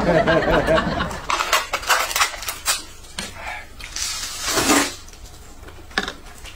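Eating sounds at a table: chopsticks and spoons clicking against bowls, then a noisy slurp of noodles about four seconds in.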